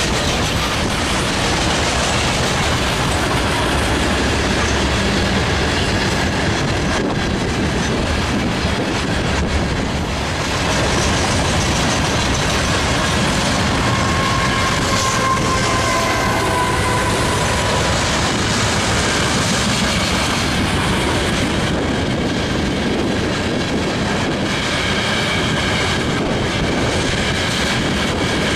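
A long freight train of open-top hopper cars rolling past, a steady rumble and clatter of wheels over the rails, with thin wheel squeals now and then. A mid-train diesel locomotive goes by about halfway through.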